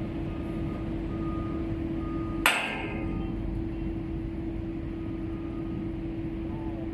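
A sledgehammer strikes a steel connecting pin in a crane's lattice boom once, about two and a half seconds in, with a sharp metallic clang that rings briefly. The pin is being driven in to join the boom sections. A steady low machinery hum runs underneath.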